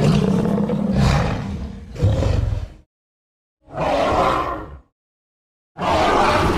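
Spinosaurus roar sound effects: a roar fading out, a short grunting call, then two more separate roars, each cut off by a second of silence.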